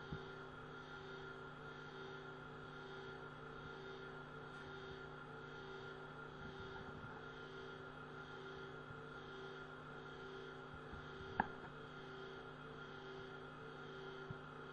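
Faint, steady electrical hum made of several unchanging tones, with a single brief click about eleven seconds in.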